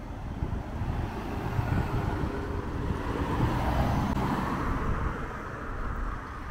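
A car passing by, its engine and tyre noise swelling to a peak about four seconds in and then fading, over a steady low rumble of wind on the microphone.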